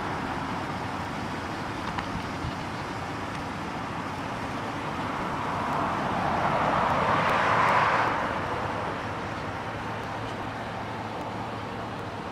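A passing car or truck on the road: a steady outdoor hiss that swells to a peak about two-thirds of the way through and then fades away.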